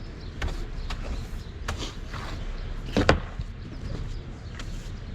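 Scattered knocks with one loud thud about three seconds in, over a steady low rumble.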